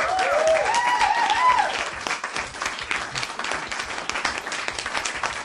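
Recorded crowd applause played as a sound effect, with whooping cheers over the first second and a half, easing off slightly toward the end.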